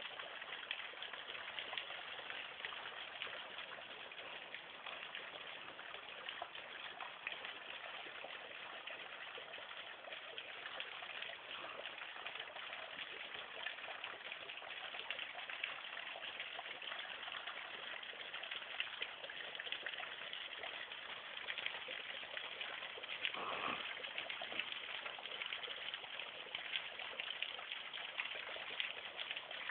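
Small waterfall splashing steadily into a pool, a constant rush of falling water.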